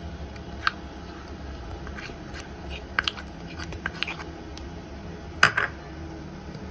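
Plastic spoon scraping and tapping against a plastic bowl and a steel bowl as thick carrot paste is spooned into idli batter: scattered light clicks and knocks, the loudest about five and a half seconds in, over a low steady hum.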